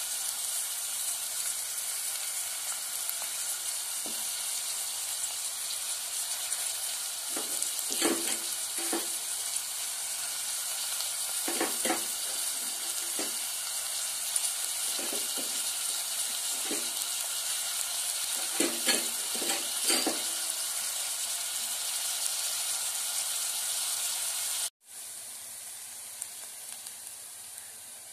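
Chopped onions frying in oil in a metal pot, a steady sizzle, with a few clusters of short knocks of a utensil against the pot in the middle. Near the end the sizzle cuts off suddenly and a quieter hiss follows.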